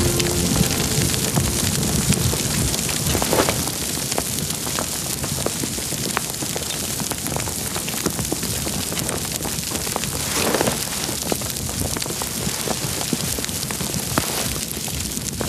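A pile of papers and books burning in a large fire, crackling steadily over the rushing noise of the flames, with two louder flare-ups about three and ten seconds in.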